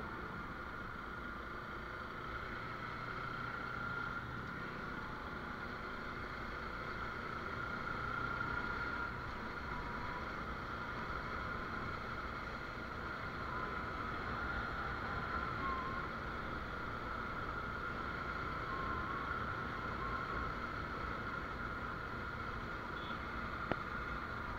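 Motorcycle running at a steady cruise, engine drone mixed with wind rush on a helmet-mounted action camera's microphone.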